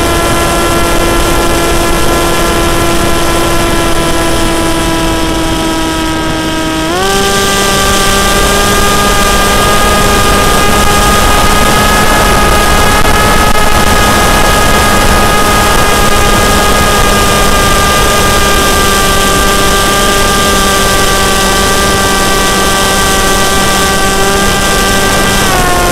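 A model flying wing's motor and propeller, heard from the on-board camera: a steady whine over wind rush. The pitch jumps up sharply about seven seconds in as the throttle is opened, holds, and drops back near the end.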